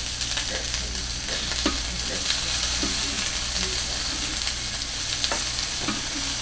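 Chicken pieces sizzling in a hot skillet, a steady hiss, with a few sharp clicks of a spatula against the pan.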